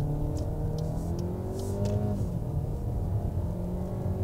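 VW Tiguan's 1.5 eTSI four-cylinder turbo petrol engine at full throttle in a launch-control start from standstill, heard inside the cabin: the engine note climbs, drops with an upshift about two seconds in, then climbs again. The engine is really straining to pull the roughly 1.8-tonne SUV.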